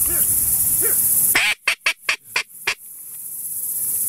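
Duck quacks: a few faint calls in the first second, then a quick run of loud quacks from about a second and a half in, over a steady high trill of crickets.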